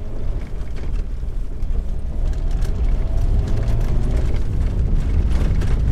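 Cabin road noise of a VW T5 van driving on a gravel track: a heavy low rumble of tyres on gravel with scattered small ticks of stones, growing louder as it picks up speed.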